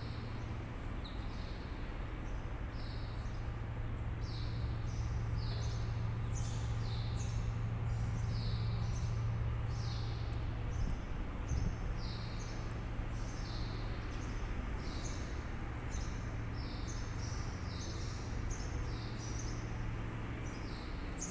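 Small birds chirping over and over, about two short falling chirps a second, over a steady low hum.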